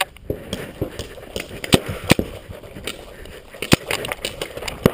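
Paintball markers firing in irregular sharp pops during a game.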